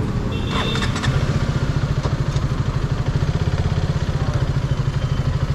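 KTM Duke 200's single-cylinder engine idling with a steady, even, rapid pulse, with some brief clatter about half a second in.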